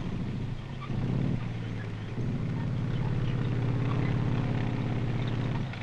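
Tank engine running with a steady low drone that steps up in loudness about a second in and again about two seconds in, then drops away near the end.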